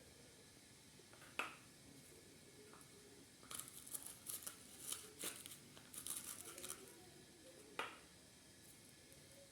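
Faint crinkling and rustling for about three seconds in the middle, with a light click about a second in and another near the end.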